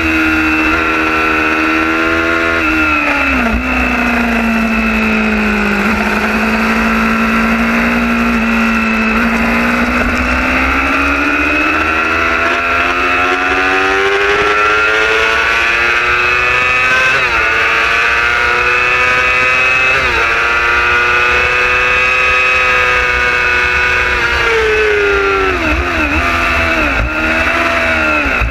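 Racing motorcycle's engine at full race pace, picked up by a camera mounted on the bike, with heavy wind rush underneath. Its note falls steeply about three seconds in as the rider brakes and downshifts, climbs slowly back up through the middle, dips briefly twice as it shifts up, and near the end drops again with a quick run of downshift blips.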